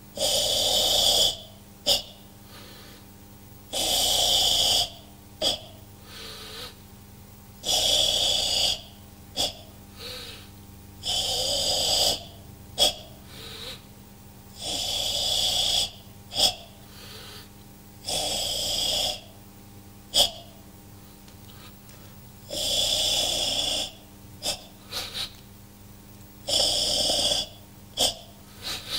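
A karateka's forceful ibuki breathing through the Sanchin kata: about eight long, hissing, rasping exhalations, one every three to four seconds. Each is followed by a short, sharp sound.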